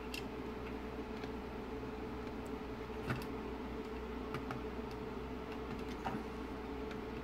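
A few faint clicks and taps of the plastic parts and circuit board of a Mercedes Vito W639 instrument cluster being handled, the loudest about three seconds in, over a steady background hum.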